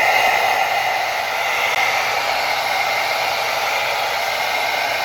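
Handheld blow dryer running steadily, a continuous rush of air with a faint steady whine from its motor, heating an adhesive label to soften the glue.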